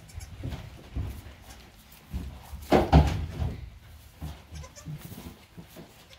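Goat bleating, with the loudest call about three seconds in, among the newborn kids and their mother.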